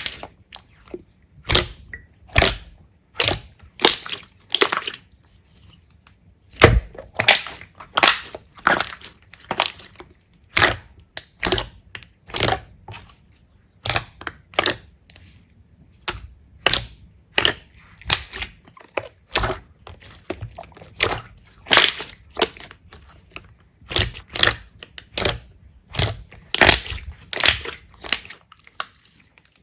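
Repeated sharp crunches and crackles, roughly one or two a second, as crunchy slime is pressed and squeezed by hand, with a brief lull about five seconds in.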